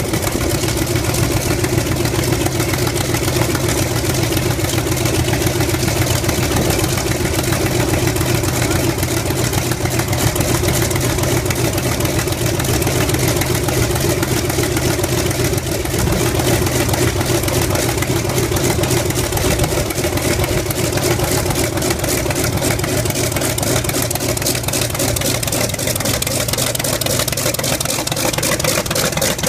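Douglas A-1 Skyraider's Wright R-3350 18-cylinder radial engine running steadily at low, idle-to-taxi power, its propeller turning.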